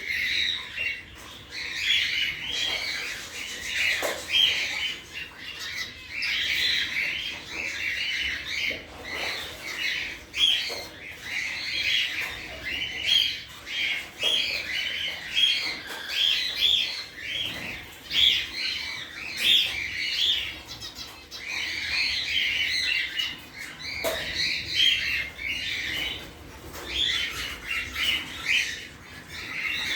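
Gouldian finches calling in an aviary: a continuous stream of short, high chirps and squawks, with calls overlapping throughout.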